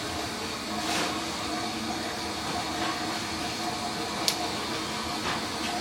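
Steady mechanical whirring noise with a faint hum, as from a running fan or small motor; a single sharp click about four seconds in.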